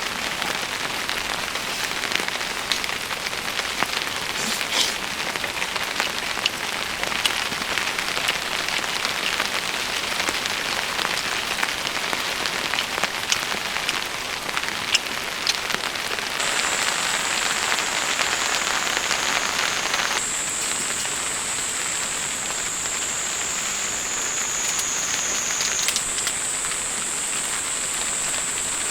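Steady rain falling, with individual drops ticking sharply on a surface. About halfway in, a thin, steady high-pitched tone comes in over the rain and stays, shifting pitch slightly twice.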